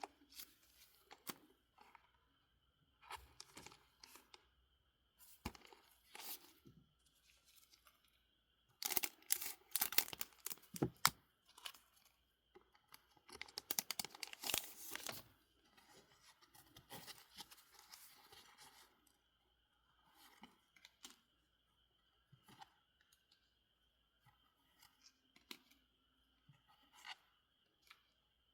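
Foil wrapper of a Pokémon card booster pack crinkling and being torn open, with two loud stretches of tearing around ten and fourteen seconds in. Before and after them come quieter crinkles and clicks.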